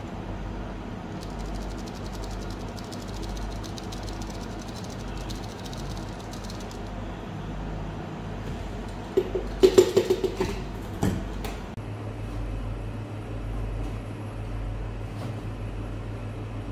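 Steady low machine hum of a kitchen, with a run of fine rapid ticks for several seconds near the start. A short burst of loud clattering knocks comes about nine to eleven seconds in.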